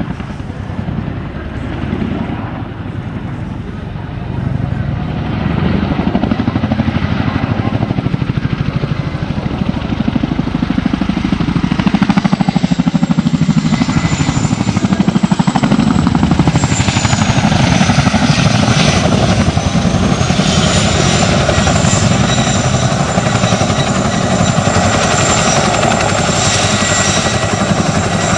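Helicopter flying by: a rapid rotor beat with a high turbine whine, growing louder about five seconds in, the whine dipping in pitch and rising again later on.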